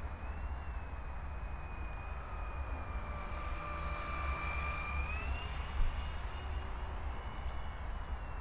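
Blade 120 SR micro RC helicopter in flight: a high motor-and-rotor whine that drops in pitch and grows louder about three to five seconds in as it comes close, then climbs again. A steady low rumble lies underneath.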